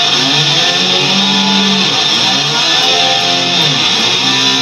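Loud electric guitar music: a slide guitar gliding up and down in pitch, in imitation of a motor scooter revving, over sustained low notes.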